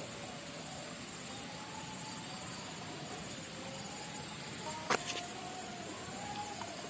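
Insects chirring steadily and high-pitched over an even background hiss, with two sharp clicks about five seconds in.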